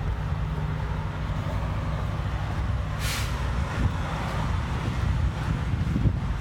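Semi truck's diesel engine idling with a steady low rumble, and a short hiss about three seconds in.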